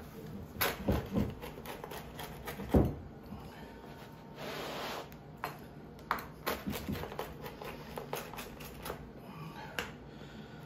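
Pizza cutter wheel rolling through a pizza's crisp baked crust on a wooden cutting board: scattered crunches, clicks and knocks of the wheel against the board, the loudest about three seconds in, with a short scraping stretch a little past the middle.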